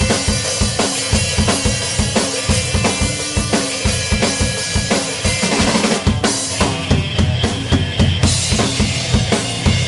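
Electric guitar and drum kit playing a rock part together, with steady kick and snare hits driving under the strummed guitar.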